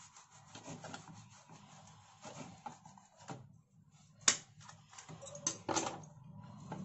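A knife cutting through a toasted burger bun on a plate: soft crackling scrapes and small clicks, with one sharp click about four seconds in and a few more shortly before six seconds.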